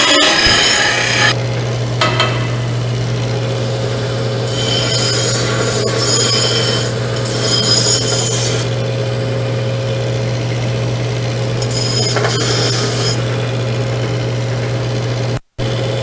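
Bench disc sander running with a steady hum while a steel part is ground against the disc in several rasping passes, trimming it down because it sits a little high. The sound cuts out for an instant near the end.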